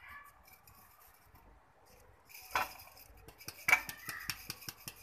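Steel mesh sieve of ground garam masala being worked and shaken: faint rustling of the powder at first, then a sharp clink about halfway and quick metallic tapping and rattling in the second half as the sieve knocks against the vessel beneath.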